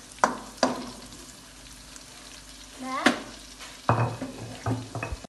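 Onion slices frying in oil in a wok, with a steady sizzle. A wooden spatula stirs and knocks against the wok a few times: twice near the start, once about three seconds in, and a cluster of heavier knocks near the end.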